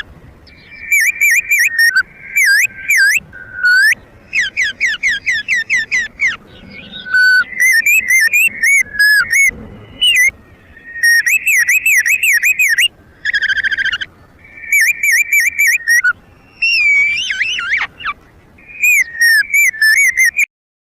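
Whistled bird call used as a lure in bird trapping: fast up-and-down warbling notes, repeated in short phrases with brief pauses between them.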